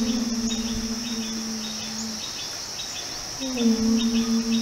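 Women's voices chanting a long, held "Om" in prayer, the first chant ending about two seconds in and the next starting about a second later. Insects chirp steadily and rhythmically underneath.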